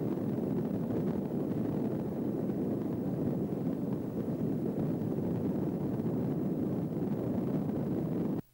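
Wind buffeting the microphone on a moving ship's deck: a steady, dense low rumble that cuts off abruptly at the very end.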